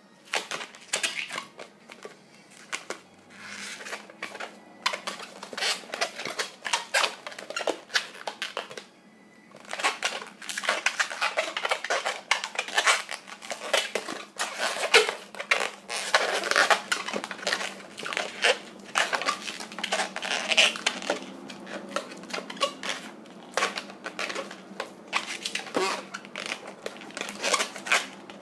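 Inflated latex twisting balloon being twisted and squeezed by hand: a dense run of rubbery squeaks, creaks and rubbing, with a short pause about nine seconds in.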